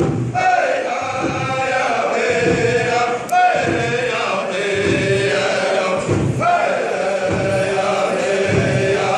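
Powwow drum group singing: men's voices in unison, phrases gliding down in pitch, over a steady drumbeat.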